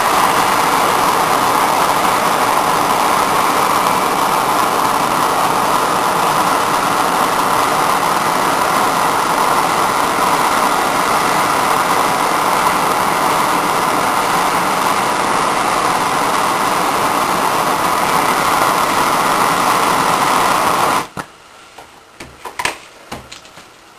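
Handheld gas torch burning with a steady rushing hiss while heating a wire terminal to melt solder, cutting off suddenly about 21 seconds in.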